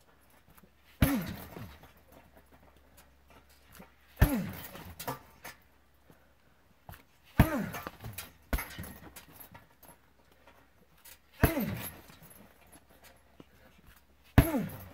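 Kicks landing on a heavy punching bag: a hard thud about every three seconds, five in all plus one lighter hit, each followed by a short grunt falling in pitch from the kicker.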